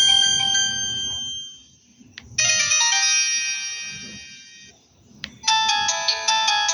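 Samsung GT-E1270 mobile phone playing its ringtones one after another: an electronic melody fades out, a click is followed by a sustained electronic chime that fades away, and after another click a new tune of quick, bright repeated notes begins.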